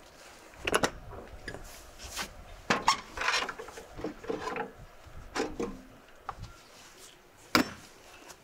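Cookware and wooden utensils being handled: several sharp knocks and clatters with scraping in between. The sharpest knocks come about a second in, around three seconds in and near the end.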